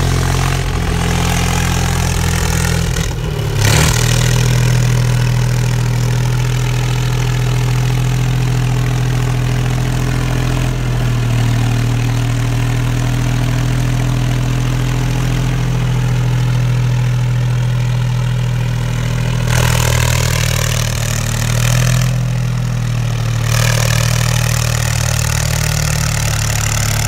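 Heavy German WWII armoured vehicle's petrol engine idling steadily, its tone shifting abruptly a few times.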